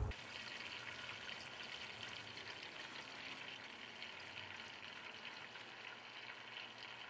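Ribeye steak sizzling over oak embers: a steady hiss with a fine crackle.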